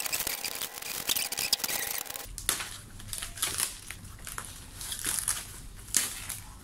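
Bubble wrap crackling as it is cut open with a utility knife, a dense run of small crackles for about two seconds, then plastic sheeting rustling in scattered bursts as it is pulled off.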